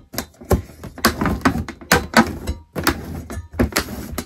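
Hand turning the damper knob of an Airstream ceiling air vent clockwise to close it: a string of irregular clicks and knocks from the vent cover and knob.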